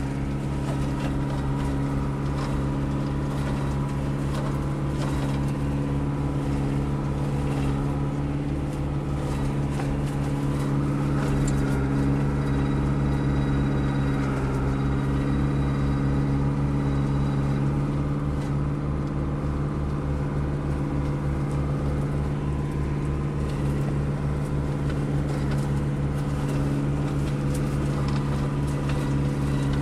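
Tractor engine running steadily under load, driving a homemade crusher that chops willow and pine brush, with a fast, even low throb.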